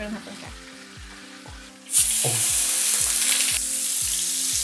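About two seconds in, a loud sizzle starts suddenly and holds steady: flank steak frying in a very hot, oiled frying pan. Background music with a steady beat plays throughout.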